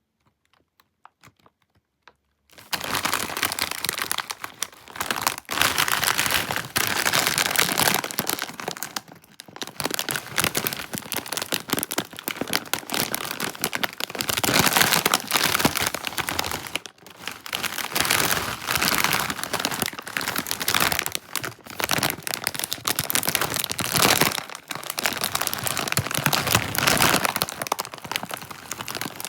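Foil chip bag of crab-flavour Lay's crinkling and crackling as it is handled, starting about two and a half seconds in and running on in long bursts with short pauses.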